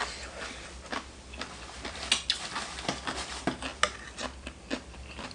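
Irregular sharp clicks and small cracks of food being handled and eaten close to the microphone, with the loudest cracks about two seconds and four seconds in.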